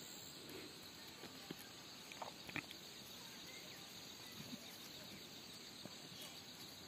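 Quiet rural outdoor ambience: a faint steady hiss with a few soft clicks a little over two seconds in.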